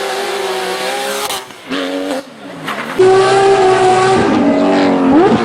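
Porsche racing engines at high revs. The note dips twice briefly in the first three seconds, then about three seconds in it cuts abruptly to a louder, steady engine tone that falls away and sweeps sharply back up near the end, like a throttle blip on a downshift.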